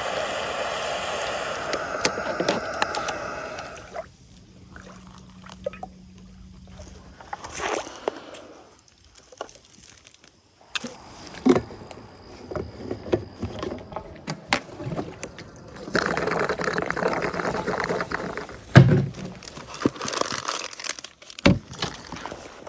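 Backpacking canister stove's burner running with a steady hiss, shut off about four seconds in. Then scattered clatter and knocks of gear being handled. Later liquid pours into a red plastic jerry can for a couple of seconds, followed by more knocks.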